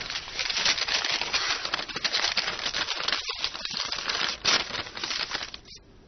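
A dense crackling, rattling noise that cuts off a little before the end.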